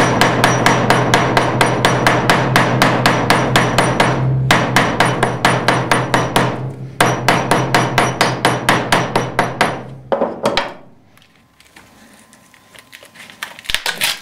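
Rapid hammering with a round-faced hammer on dried beef back sinew lying on a small steel anvil, beating the sinew so it softens and loosens into fibres. About six blows a second in three runs with short pauses, stopping about ten seconds in.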